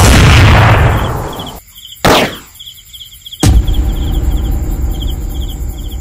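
Night insects chirping in a steady, pulsed, high rhythm. Over them come loud rushing bursts: one right at the start that fades over about a second and a half, a brief falling whoosh about two seconds in, and another loud burst about three and a half seconds in that lingers.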